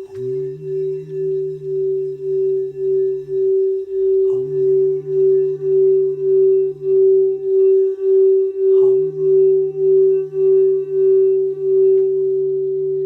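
Singing bowl ringing with one steady tone that pulses about twice a second, while a voice hums three long, low notes under it, each held a few seconds. Near the end the humming stops and the bowl tone holds on without pulsing.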